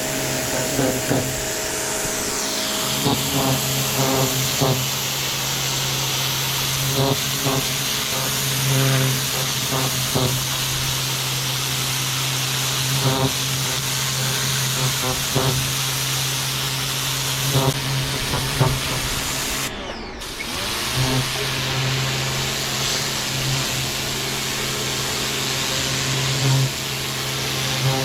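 Westinghouse electric pressure washer running: a steady motor hum under the hiss of the water spray, the hum dropping out and coming back now and then. The sound cuts out briefly about twenty seconds in.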